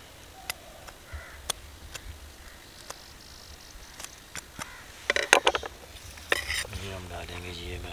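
Light clicks of a kitchen knife picking the seeds out of a lemon wedge over a wooden chopping board, then louder clattering about five and six seconds in as the knife is laid on the board and the steel bowl is handled.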